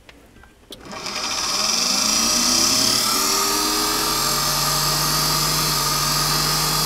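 A click, then a homemade balancing stand spinning a rewound electric-drill armature up to speed: a motor whine that rises in pitch for about two seconds and then runs steady. This is a balancing run, checking the armature's vibration with a trial weight fitted.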